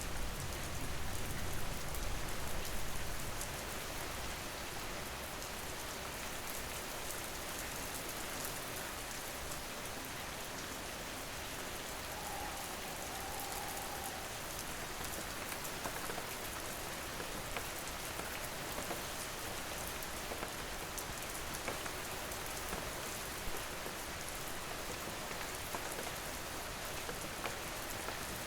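Steady rain falling, an even hiss with scattered drops tapping. A deeper, louder wash sits under it for the first three seconds or so.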